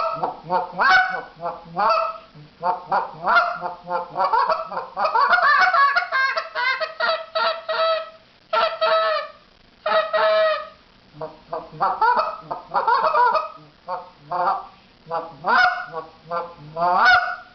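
Goose call blown in quick runs of hiccup notes, each a moan and a cluck rolled together, with a few short pauses. It imitates geese getting excited.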